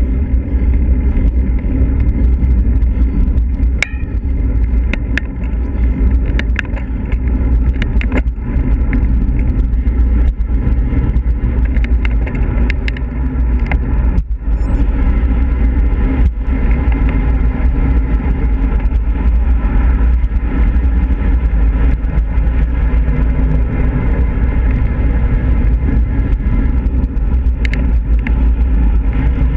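Wind rushing over the microphone of a handlebar-mounted action camera on a road bike moving at speed, with tyre and road noise underneath and a few short clicks and knocks.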